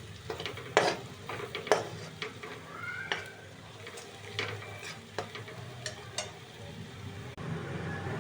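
Potatoes, carrots and peas being stirred in a hot pan: a cooking utensil scraping and knocking against the pan in irregular strokes over a light sizzle.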